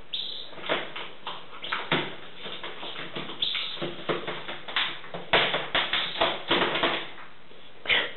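A jackdaw and a magpie scuffling in a wire cage: an irregular run of taps, scrapes and rustles, with a thicker cluster about five to seven seconds in and a sharp one near the end.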